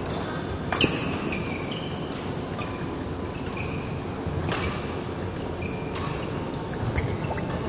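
Badminton rally: several sharp racket hits on the shuttlecock, the loudest about a second in, with short squeaks of court shoes on the floor between them, echoing in a large hall.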